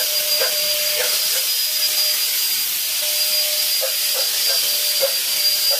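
Electric mosquito fogging machine running steadily while spraying insecticide mist from its hose wand: a loud, even blower hiss with a high whine, and a few short chirps recurring over it.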